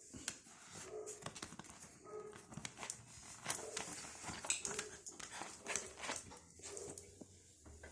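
A dog at play with a ball, fairly quiet: a run of small clicks and taps, with short low whimpers about once a second.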